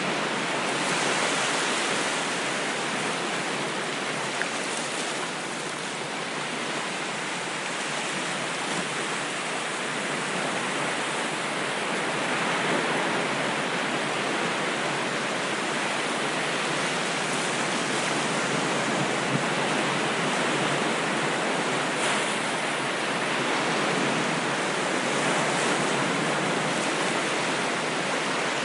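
Ocean surf: a continuous wash of waves that swells and eases gently, with no deep rumble.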